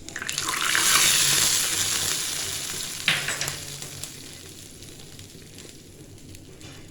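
Mustard-seed tempering in hot oil sizzling, swelling within the first second and dying away over the next few seconds. A single sharp knock about three seconds in.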